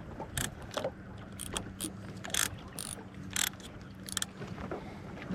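Fishing reel's line clicker ticking in irregular bursts as a planer board pulls line off the spool, over a low steady hum.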